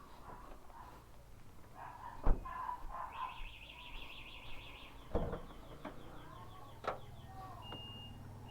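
Birds calling and chirping, with a fast high trill in the middle. A sharp knock comes about two seconds in and two lighter knocks follow later.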